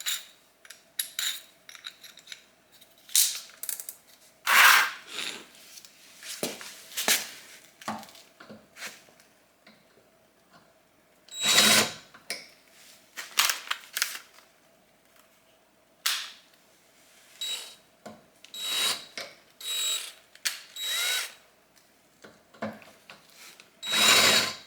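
Electric drill run in a series of short bursts, about a dozen, some with a steady high motor whine, as it enlarges holes in metal with a large bit.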